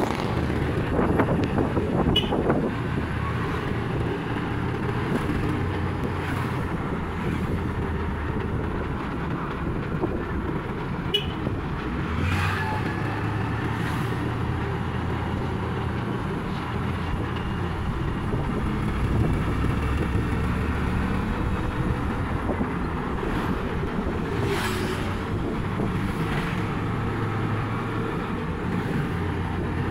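Motorcycle engine of a tricycle (motorcycle with sidecar) running steadily on the move, with road and wind noise, heard from the sidecar.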